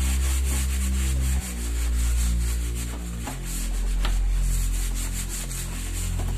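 Background music with a steady bass line whose notes change twice, under a rough, repeated rubbing noise.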